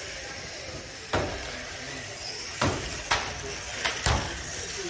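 Small electric radio-controlled ministock cars running on a carpet track with a steady high whine, and five sharp knocks of cars hitting the track's barriers, one about a second in and four in quick succession in the second half.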